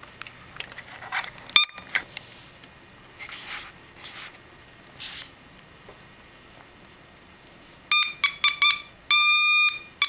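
Buzzer driven by a 555-timer Morse code practice oscillator, keyed with a homemade straight key: near the end it sounds a single high steady tone in a few short beeps and then one longer note. Before that, a few clicks and handling sounds as the key's plug goes in.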